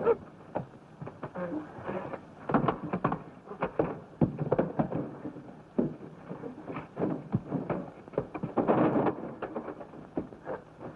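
Fistfight sound effects: an irregular run of thuds and knocks from blows, scuffling and bodies striking furniture, with a longer, louder crash about nine seconds in.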